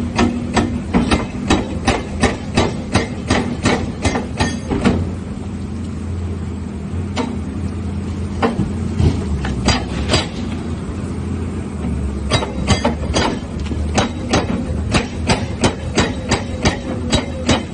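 Excavator running, its diesel engine humming low under a series of sharp, regular metallic knocks, about three or four a second. The knocks thin out to a few scattered strikes in the middle and pick up again near the end.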